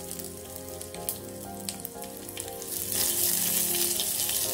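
Crushed garlic and curry leaves frying in sesame oil in a clay pot, crackling and sizzling with many small pops. The sizzle grows louder about three seconds in, while a ladle stirs them.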